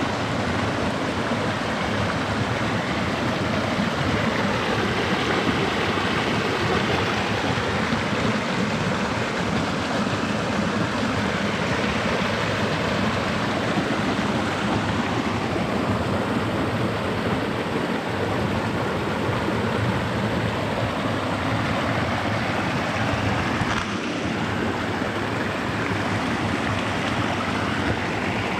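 Water rushing steadily over a small waterfall on a creek swollen by heavy rain.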